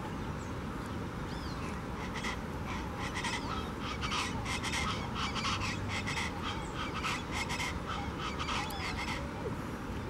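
Colombian chachalacas (guacharacas) calling: a chorus of harsh, rapidly repeated calls that starts about two seconds in and dies away near the end. A few thin whistled notes from smaller birds are heard too.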